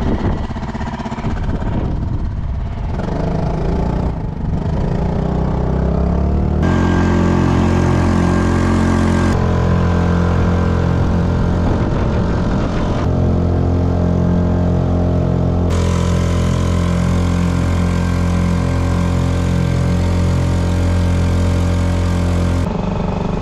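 Small outboard motor running steadily at cruising speed, driving an inflatable dinghy across open sea, with wind and water rushing past. Its note jumps abruptly in pitch and level several times.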